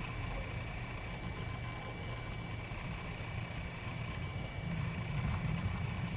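Wind rumbling on the camcorder microphone, a low uneven buffeting that gets stronger near the end.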